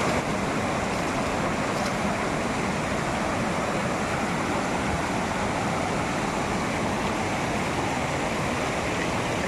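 Fast, silt-laden river water rushing over rocks in shallow rapids: a steady, unbroken rush.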